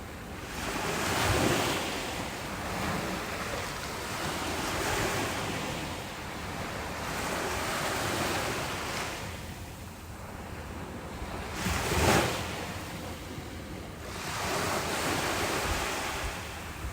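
Ocean surf breaking and washing up a beach, swelling and easing every three to four seconds, with the sharpest break about twelve seconds in.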